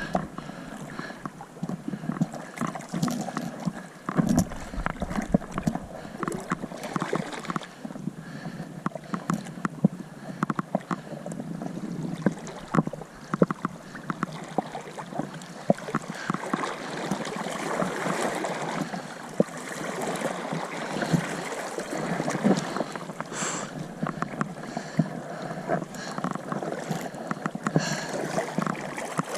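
River water sloshing and splashing close by, with many small sharp splashes throughout.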